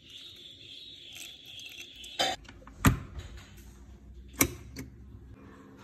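Liquid pouring from a steel bowl onto rice in a rice cooker's inner pot. After about two seconds come several sharp clicks and knocks from the rice cooker as it is closed and switched on.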